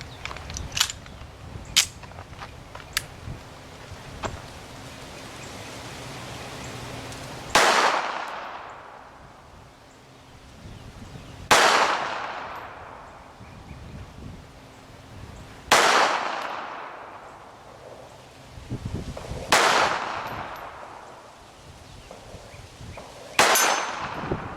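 .380 ACP pistol firing handloaded rounds: five single shots, slow and evenly spaced about four seconds apart, each with an echoing tail, after a few light clicks near the start.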